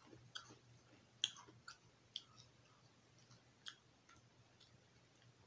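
Faint, irregular crunching of Extra Cheesy Cheez-It crackers being chewed, a string of short sharp clicks with the loudest about a second in, over a faint steady low hum.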